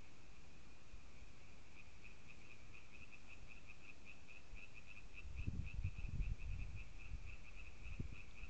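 Steady high-pitched night chirping, several pulses a second, from a calling frog or insect chorus. About five seconds in, louder low rustling and thumps start close to the microphone and recur near the end.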